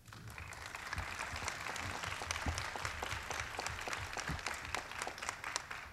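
Audience applauding, a dense patter of many hands clapping that swells over the first second and tapers off near the end.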